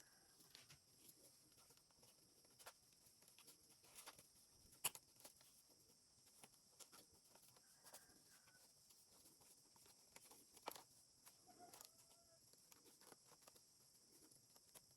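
Near silence: a steady faint hiss with scattered faint clicks and taps, the sharpest about five seconds in and about eleven seconds in, and a brief faint chirp a little later.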